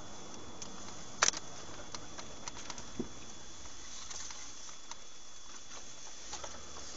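Steady hiss of a moving vehicle's interior picked up by a dashcam's microphone, with a faint steady high whine, scattered light clicks and rattles, and a sharp double click about a second in.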